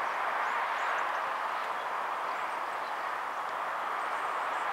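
Steady distant roar of an Airbus A300-600ST Beluga's jet engines as it descends on final approach.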